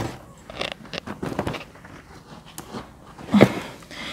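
Rustling and irregular light clicks of knitting project bags being picked up and handled, with a short, louder knock about three and a half seconds in.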